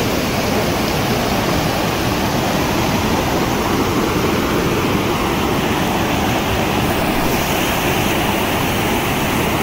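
Muddy floodwater of a river in flash flood rushing over boulders: a loud, steady rush of water that never lets up.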